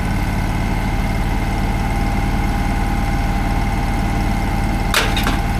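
An engine running steadily at idle, with an even low pulsing and a steady whine on top. A sharp click about five seconds in.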